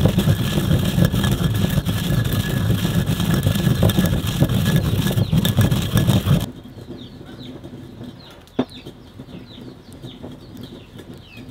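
Stone pestle grinding black pepper and coriander seeds in a stone mortar, loud and steady. About six and a half seconds in, this stops suddenly and gives way to a wood fire crackling with one sharp pop, while birds chirp.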